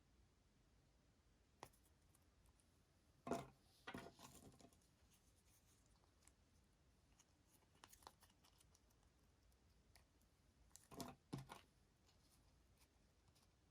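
Blade cutting through a bar of soap: a sharp crisp cut about three seconds in followed by a second of crumbly crackling, a few light clicks around eight seconds, and two more crisp cuts about eleven seconds in.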